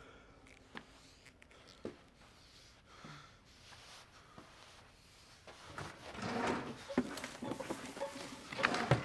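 Rummaging through a nightstand drawer: objects shuffling and knocking against each other, with a few sharp clicks. It starts about halfway in, after a few faint ticks.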